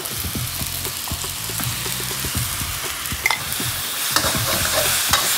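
Rice noodles, pork belly and freshly added seasoning sauce sizzling in a hot steel wok while a metal spatula stirs and scrapes them, with a few sharper clinks of the spatula against the wok.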